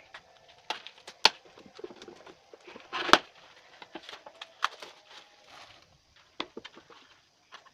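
Plastic and paper packaging of an instant noodle cup being handled and torn open: irregular crinkling and crackling with sharp clicks, loudest a little after a second and again around three seconds in.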